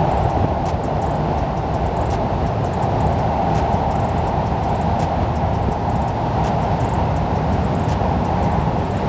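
Steady rumble and rush of a Cadillac limousine being driven at speed on a snowy road, engine and tyre noise without change.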